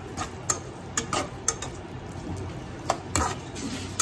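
Metal slotted spatula stirring beef slices in thick sauce in a nonstick pot, with several irregular clacks and scrapes against the pan.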